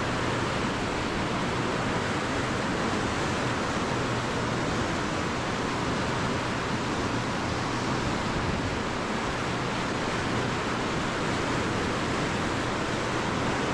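Steady, even rush of fast-flowing river water, the high flow let out by a hydroelectric dam while its generators are running.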